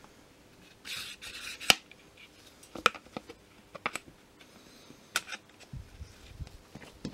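Handling sounds of a vacuum cleaner roller beater being reassembled: a steel axle sliding into the brush roll's end bearings and plastic caps, giving a brushing rustle about a second in and several sharp clicks and knocks.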